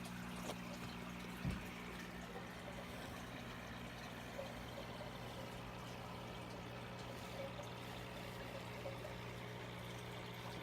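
Aquarium water running and trickling steadily, with a steady low hum underneath. One short knock about one and a half seconds in.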